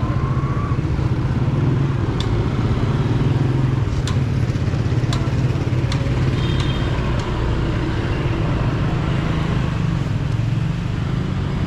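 Steady road and traffic rumble heard from a mountain bike riding along a city street, with a few sharp clicks or rattles spread through it.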